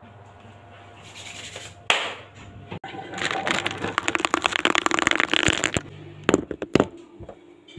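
Crackly rustling handling noise close to the microphone, with a sharp knock about two seconds in and two more knocks near the end.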